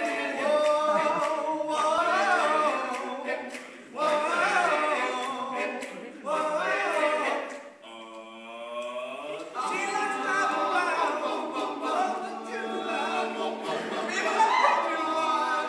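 Male a cappella group singing in close harmony, with no instruments, one voice leading over the others. A brief gliding vocal sound comes about eight seconds in.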